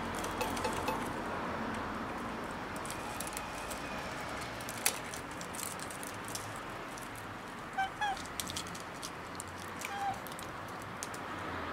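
Outdoor ambience with a steady hiss, scattered light clicks and scratches, and a few short pitched calls: two close together about eight seconds in and one about ten seconds in.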